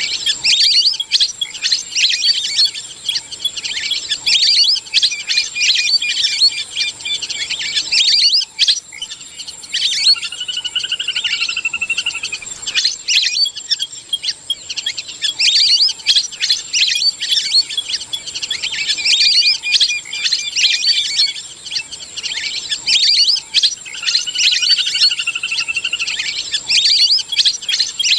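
Lesser whistling ducks calling as a flock: many dense, high whistled chirps, played as a looped lure recording with the same run of calls coming back about every fourteen seconds. A steady high-pitched tone runs underneath.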